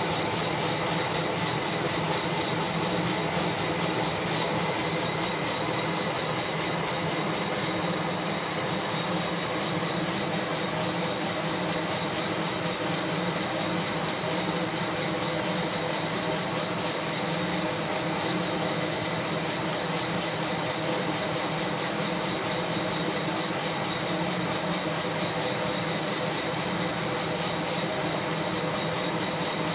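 Fracino Roastilino hot-air coffee roaster running steadily, its blower hissing while the coffee beans tumble and rattle in the glass roasting chamber.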